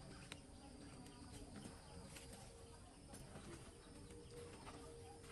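Near silence: faint forest ambience with a faint low steady tone that comes and goes, and a few soft ticks.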